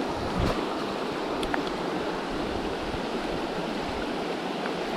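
Steady rushing of a small river's current, with a soft thump about half a second in.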